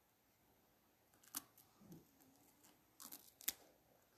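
Near silence with a few faint clicks of eating, mouth and lip sounds as a piece of bread is bitten: one about a second in and a small cluster near the end, the last the sharpest.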